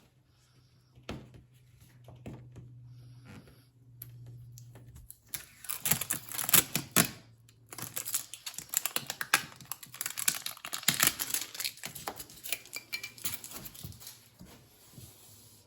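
Packaging being pulled off a newly unboxed fridge. A few clicks over a low hum at first, then from about five seconds in a long run of rapid, irregular crackling and clicking.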